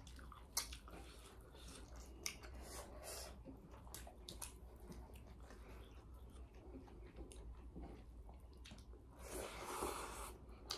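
Faint chewing and mouth sounds of people eating rice and curry with their fingers, with a few small clicks and a short, louder slurp near the end as food is lifted to the mouth.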